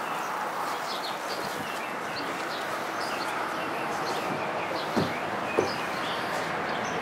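Small birds chirping over and over, with two light knocks about five seconds in, as a small casket is set into the rear deck of a hearse.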